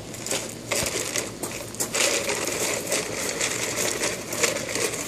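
Loose gravel crunching and rattling under the wheels of a gravel-loaded toy dump truck pushed by hand across a gravel bed, an irregular steady stream of small clicks.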